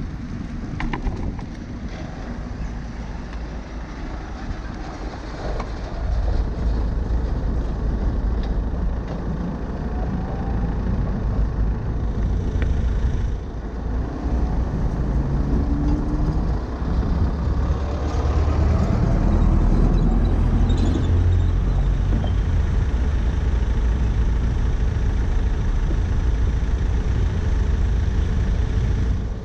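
Busy road traffic close by: engines and tyres of passing cars, vans and buses making a steady low rumble that gets louder about six seconds in.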